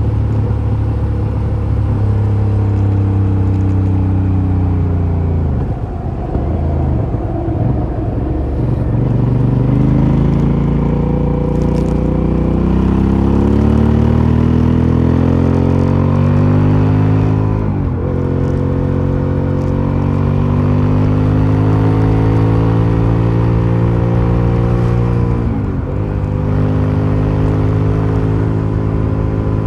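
Aprilia Shiver 750's V-twin engine running through its stock exhaust under way. The pitch climbs steadily and dips sharply three times, as at gear changes.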